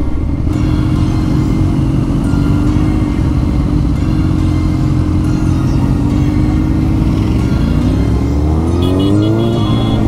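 Suzuki GSX-R1000 K8 inline-four with a decatted Cobra dual exhaust, running steadily at part throttle. From about seven and a half seconds in it accelerates hard, its pitch climbing in two steps as it shifts up on the quickshifter.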